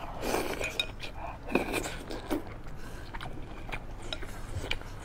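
Close-up eating sounds: biting into and chewing a mouthful of fatty beef slices coated in sesame paste, wet and irregular, with a few small sharp clicks.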